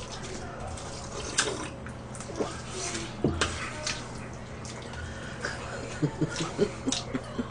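Close-up eating sounds: wet slurping and chewing of noodles and soup, with a few sharp clicks of a fork against a dish and a quick run of short wet sounds near the end, over a steady low hum.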